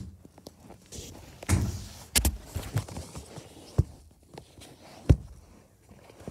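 Rustling and scraping as a phone is handled and moved about under a bed, with several sharp knocks and bumps, the loudest about five seconds in.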